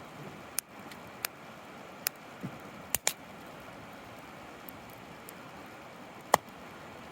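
A steady low hiss with about six sharp clicks or pops scattered irregularly through it, the loudest a pair about three seconds in and a single one a little after six seconds.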